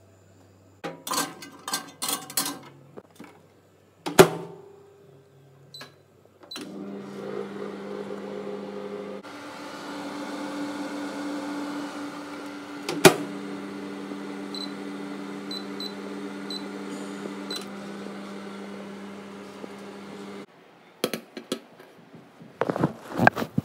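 Microwave oven running with a steady hum for about fourteen seconds, preceded by a few clicks and a sharp knock. The hum stops suddenly, and a metal pizza pan clatters as it is set down near the end.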